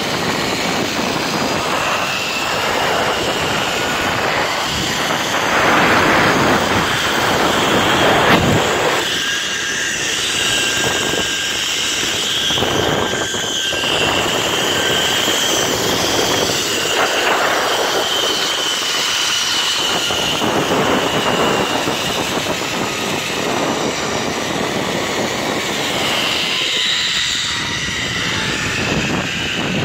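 Zip-line trolley pulley rolling along a steel cable: a steady whirring whine mixed with wind rushing over the microphone. In the last few seconds the whine slides down in pitch as the ride slows.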